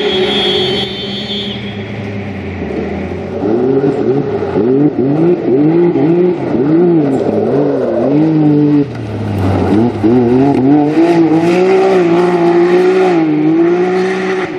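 Can-Am Maverick X3 XRS side-by-side's turbocharged three-cylinder engine revving hard. The revs rise and fall about twice a second for several seconds, then hold high and fairly steady near the end.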